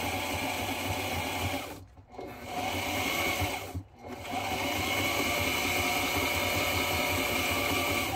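Electric sewing machine stitching through layered textured vinyl, running in a steady fast stitch. It stops briefly twice, about two and four seconds in, where the work is pivoted at the corners.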